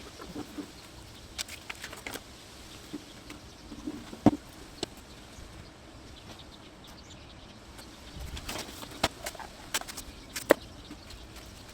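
Irregular handling noises from hands and tools working on a car door during a speaker install: scattered light taps and clicks, with two sharp knocks, one about four seconds in and one near the end.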